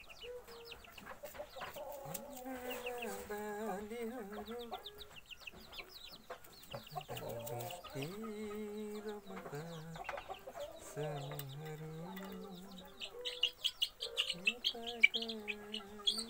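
Young chickens peeping: many short, high cheeps scattered through, coming thickest and loudest near the end. Under them, several lower, drawn-out wavering calls a second or two long.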